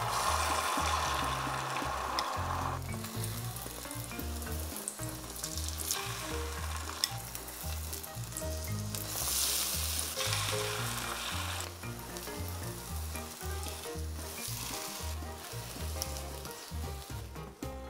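Beaten egg with chopped vegetables sizzling in an oiled, hot square rolled-omelette pan, loudest over the first few seconds as the mixture is poured in. It surges again several times as more egg is added and the layers are rolled, with a few light clicks from the utensils.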